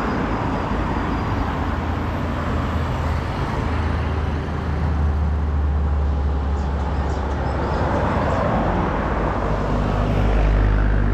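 Road traffic: motor vehicles running past in a steady low rumble that swells about four seconds in and again near the end.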